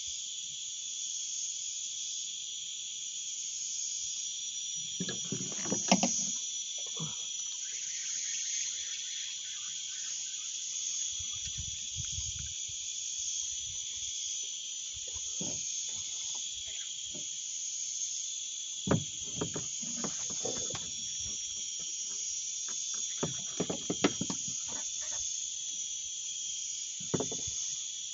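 A steady, high-pitched insect chorus with a slight pulsing shimmer, broken by a few short knocks and clicks, the sharpest about six seconds in and again later.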